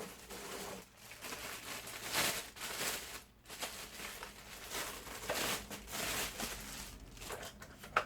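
Packaging rustling and crinkling in irregular bursts as parts are handled and unwrapped.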